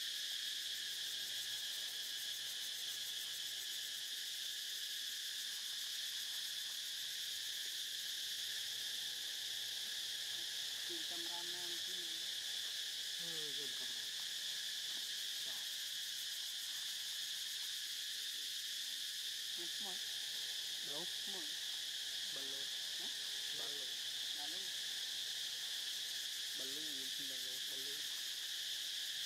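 Steady, high-pitched insect chorus droning without a break. Faint wavering calls come in now and then from about a third of the way in.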